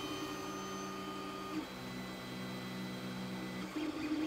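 Ender 3 3D printer's stepper motors whining in a few steady tones as the printer resumes the print. The pitch steps to a new set of tones about a second and a half in and again near the end.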